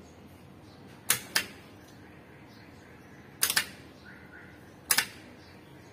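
Short sharp clicks from work at an electrical breaker panel with a meter probe: a pair about a second in, another around three and a half seconds and another near five seconds. A faint brief tone sounds just after four seconds.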